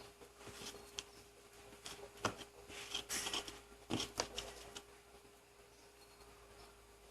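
Faint handling noise of small parts being worked on by hand: scattered small clicks and rustles, most of them between about two and four and a half seconds in, over a faint steady hum.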